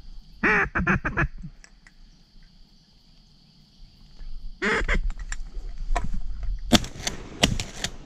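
Ducks quacking in two short runs of calls, about half a second in and again near five seconds, over a steady high hum. Near the end come loud rustles and knocks of handling noise as the camera is moved.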